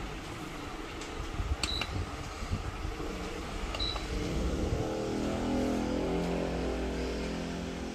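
Miyako wall fan's control panel beeping twice as its buttons are pressed, over the steady noise of the running fan; about five seconds in, a motor hum with several steady tones comes in.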